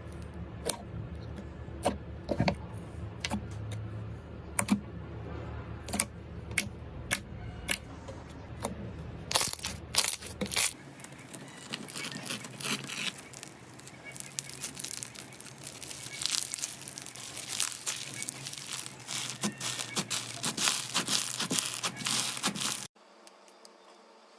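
Slime being pressed and worked by hand, first with sharp, irregular pops and clicks. About halfway through it changes to a dense crunchy crackling, which cuts off abruptly shortly before the end.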